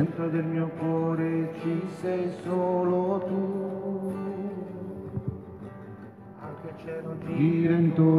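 Music: a song with acoustic guitar and singing, dipping softer in the middle and swelling louder near the end.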